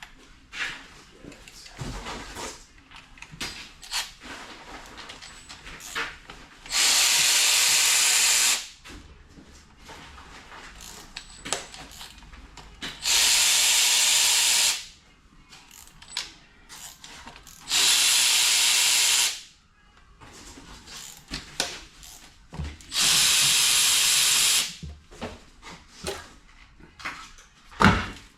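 A power tool runs in four steady bursts of about two seconds each, spinning out the 8 mm valve cover bolts on an LS V8 engine. Small clinks and knocks of bolts and hand tools come in between.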